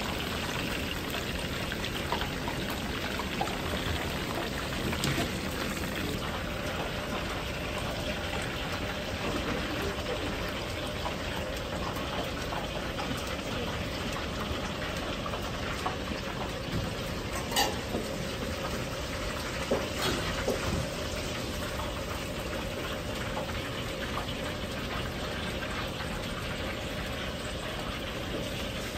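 Hot oil in a wok sizzling and crackling steadily as potato-starch-coated chicken pieces deep-fry, over a faint steady hum. A few sharp metal clicks stand out, the loudest about 17 seconds in.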